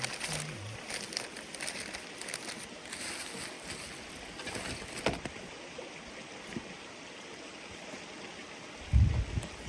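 River water running steadily. A few light clicks, and a brief low rumble near the end.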